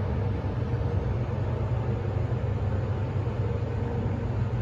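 MEI hydraulic passenger-freight elevator rising, heard from inside the cab: a steady low hum with a constant rushing noise over it.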